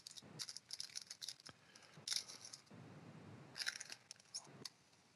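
Foil trading-card pack being torn open and handled, crinkling in three short flurries with a single click near the end.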